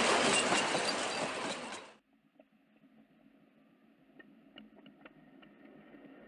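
Narrow-gauge wooden passenger carriages rolling past with a steady clatter of wheels on rail, cut off abruptly about two seconds in. Then only faint scattered clicks from the rails, growing slowly louder toward the end as a train approaches along the track.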